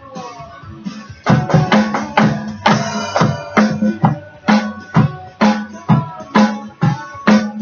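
Rock music with guitar and a drum kit. After a quieter first second the drums come in hard, with a steady beat of about two hits a second.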